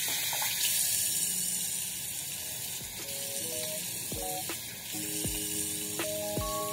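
A steady high hiss like static, with electronic music coming in about halfway: short synth notes and deep falling bass-drum thumps, roughly one a second.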